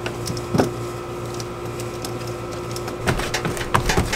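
A steady mechanical hum, with a single knock about half a second in. Near the end come several heavier knocks and low thuds as a person steps onto the plywood floor of an aluminium jon boat.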